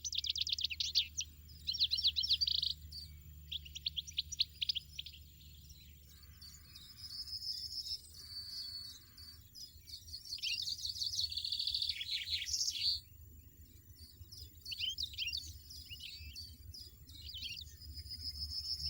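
European goldfinch twittering: quick runs of chirps and rapid trills, with short pauses between phrases.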